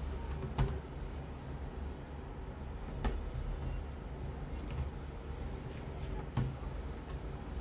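Raw chicken pieces being handled in a steel bowl of masala marinade: soft, wet handling with three short knocks or clicks against the bowl, over a steady low hum.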